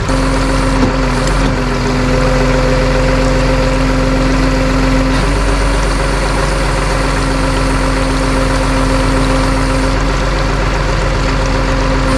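Tow truck engine running steadily with a steady whine over its low hum, starting abruptly.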